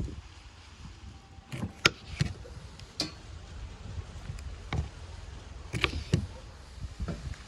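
A handful of sharp clicks and knocks at irregular intervals, over a steady low background rumble.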